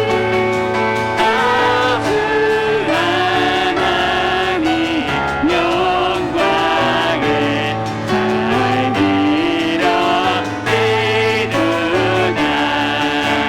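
Praise team singing a worship song with piano accompaniment: a sung melody, wavering slightly on held notes, over sustained piano chords.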